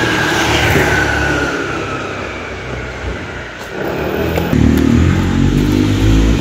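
A car driving, heard from inside the cabin: steady road and engine noise, with the engine picking up speed about four and a half seconds in.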